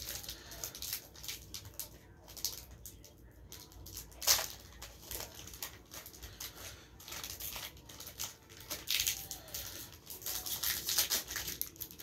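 Foil wrapper of a Pokémon booster pack being torn open and crinkled in the hands, a run of crackles and rustles with a sharper crackle about four seconds in.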